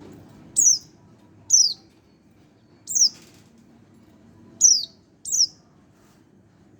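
Young white-eye (pleci), about a month old, giving five short, high calls, each sliding quickly down in pitch, at uneven intervals.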